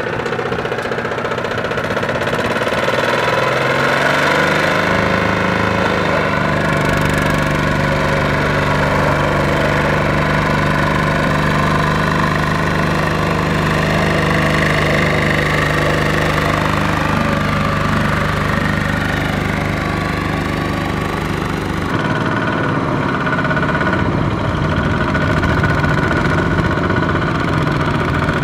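Kubota single-cylinder diesel engine of a two-wheel walking tractor running hard under load while hauling a laden trailer through deep mud. Its pitch rises about five seconds in and then holds steady, and the sound changes abruptly near the end.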